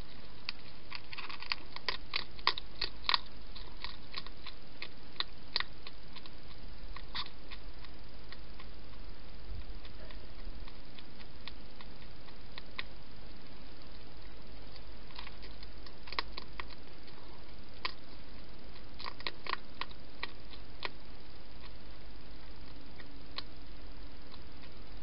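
Wild hedgehog chewing food from a dish: irregular, crisp crunching clicks that come in bunches, thickest in the first few seconds and again about two-thirds of the way through.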